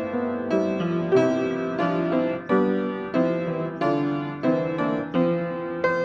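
Piano postlude: a steady succession of chords, a new one struck about every half second, each ringing and fading.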